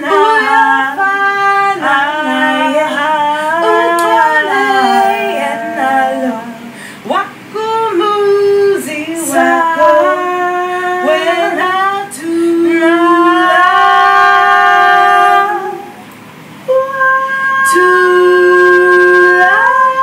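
A woman singing solo in melodic vocal runs with several long held notes, sliding up into a higher held note near the end.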